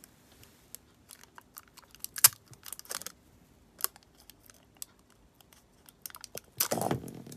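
Clear packing tape being handled and snipped with small flush cutters: scattered sticky crackles and sharp clicks, the sharpest about two seconds in, with a longer rustling crackle near the end.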